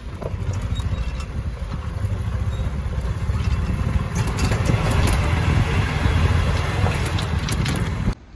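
Golf cart driving along a paved cart path: a steady low rumble with scattered rattling clicks, cutting off suddenly near the end.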